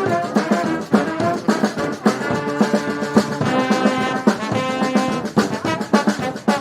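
Street brass band playing: horns hold chords over a steady drum beat.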